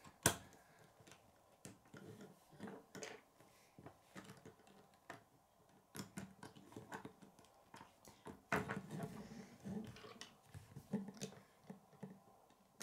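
Plastic K'nex rods and connectors clicking and snapping together as they are fitted by hand, with small knocks on a wooden tabletop. The clicks come irregularly, the sharpest just after the start and a busier flurry of handling about two-thirds of the way through.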